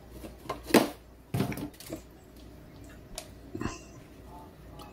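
A few faint, separate clicks and knocks of kitchen items being handled, over a faint steady low hum.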